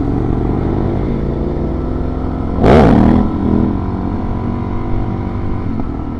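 Suzuki DR-Z400 dual-sport motorcycle's single-cylinder engine running steadily under way, with one brief, louder surge about two and a half seconds in where the engine pitch dips and climbs again.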